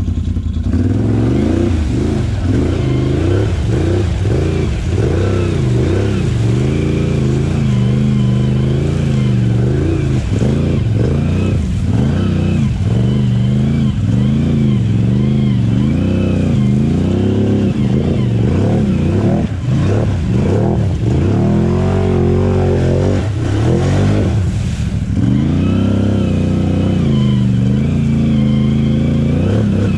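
Can-Am Outlander XMR 850 ATV's V-twin engine running under load while riding, its pitch rising and falling every second or so as the throttle is worked.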